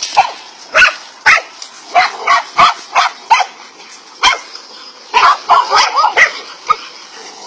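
Several dogs barking at a king cobra in quick, irregular barks, with a rapid cluster of barks about five seconds in.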